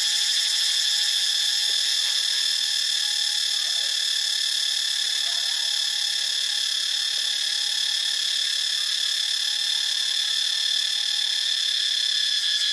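A cicada calling: a continuous high-pitched buzzing drone that holds steady, with a rapid pulsing in it at the start and again near the end.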